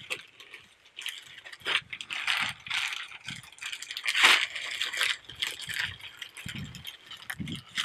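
Plastic mailer packaging being torn open and handled, with irregular crinkling and rustling of the plastic, loudest about four seconds in.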